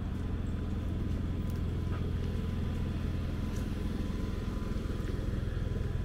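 An engine running steadily at constant speed: a low, even hum that does not change in pitch.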